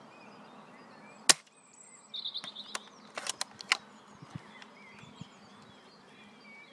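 A single sharp shot from a Novritsch SSG24 spring-powered, bolt-action airsoft sniper rifle about a second in, followed about two seconds later by a cluster of quieter clicks. Birds chirp in the background.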